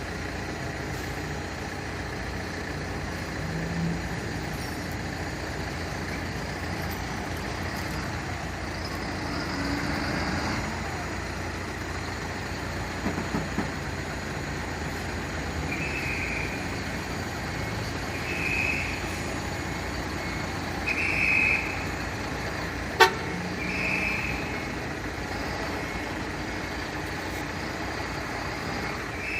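A fire truck's engine runs steadily. In the second half, a short high beep repeats every two to three seconds, and there is a single sharp click near the end.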